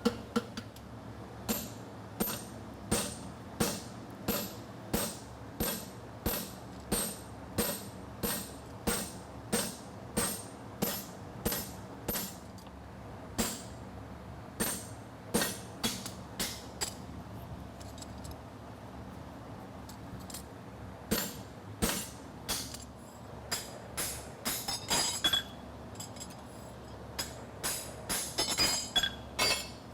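Farrier's hammer striking a steel horseshoe on the anvil while straightening the branch of a hind draft bar shoe: evenly paced blows, about three every two seconds, each with a bright metallic ring. The blows thin out to a few scattered strikes in the middle, then pick up again near the end.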